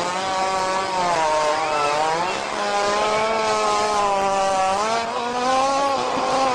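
A long, drawn-out animal fart: one unbroken buzzing tone whose pitch wavers slowly up and down.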